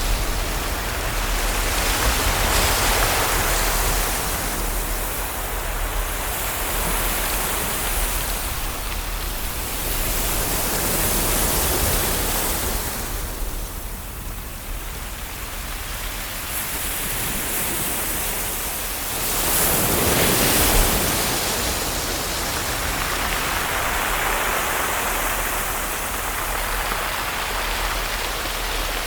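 Ocean waves washing onto the shore: a steady rush of surf that swells and falls back every several seconds, loudest about twenty seconds in.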